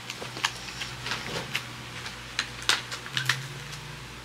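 Scattered light clicks and small rustles of hands handling a small grow-a-dinosaur toy capsule and its packaging.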